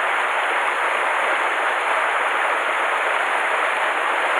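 Small cascade on a rocky mountain stream pouring into a pool: a steady rush of falling water.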